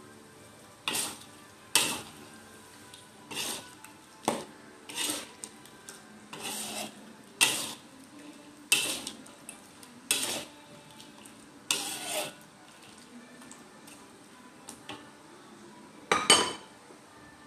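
Metal spatula scraping around a metal wok as prawns and chicken in a thick sauce are stirred: about eleven separate strokes at an uneven pace. After a pause, one louder scrape comes near the end.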